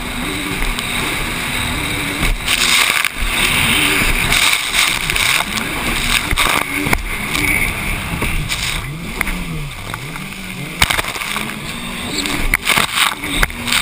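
Racing jet ski engine running hard, its pitch rising and falling as the throttle is worked through the chop and turns. Over it are rushing water spray and wind noise on the helmet microphone, with bursts of spray hiss and a few sharp knocks as the hull slams the waves.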